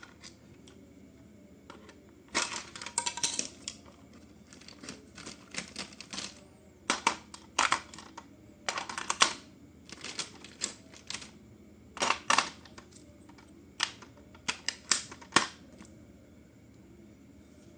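Toy packaging being handled: short runs of sharp clicks and crinkles of plastic and cardboard, starting a couple of seconds in and stopping a little before the end.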